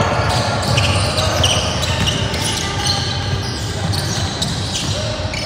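A basketball bouncing on a hardwood court, with a few short high squeaks of shoes and the background chatter of spectators in a large gym.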